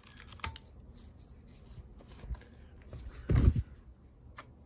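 A few sparse, light clicks as a laptop's DDR4 SO-DIMM memory stick is released from its spring retaining clips and pulled out of its slot, with one louder, low sound lasting about a quarter second just past three seconds in.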